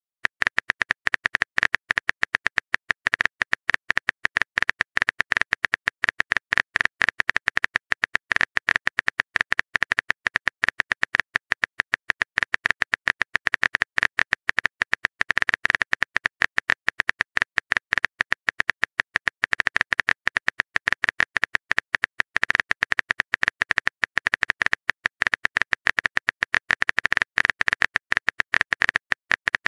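Rapid, unbroken run of short phone-keyboard key clicks, one per typed letter: the typing sound effect of a texting-story app, each click with the same bright tick.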